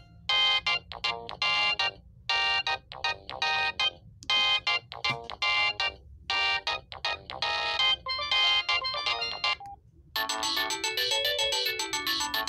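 Samsung SGH-S500 mobile phone playing a ringtone melody: short runs of bright electronic notes broken by brief gaps. About ten seconds in, the melody stops and the next tone begins, a continuous electronic sound whose pitch slides up and down.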